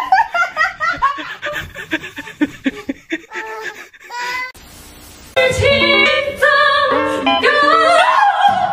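A young child giggling and laughing in quick repeated bursts. From about five seconds in, music with a stepping melody takes over.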